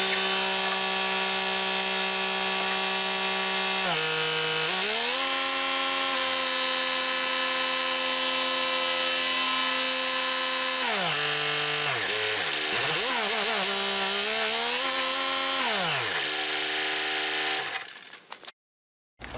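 John Deere 2032R compact tractor's three-cylinder diesel running with a steady whine while it is driven around to warm up for an oil change. The pitch dips about four seconds in and swings down and up several times later on, as engine speed changes, then cuts off near the end.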